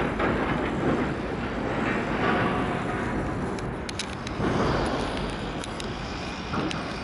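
Small waves washing onto a shingle beach, swelling and fading a few times, about every two seconds, over a low wind rumble on the microphone.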